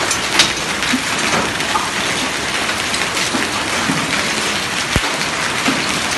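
Rain and hail falling onto stone paving: a steady, dense hiss made of many small sharp hits. A single low thump comes about five seconds in.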